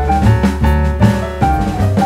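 Background music: a jazzy tune with piano-like notes over a steady drum-kit beat.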